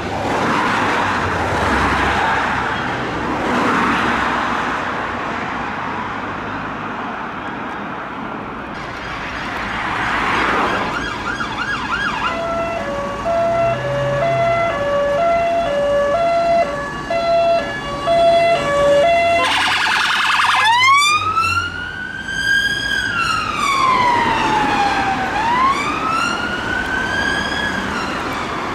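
Traffic noise from passing vehicles, then an emergency vehicle's siren: a high-low two-tone for several seconds, a brief fast yelp, then a slow wail that rises and falls twice.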